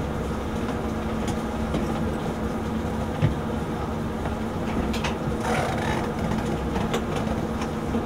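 Steady low background hum, with a few light clicks and a brief scrape about five seconds in as the dryer's sheet-metal top panel is lifted and handled.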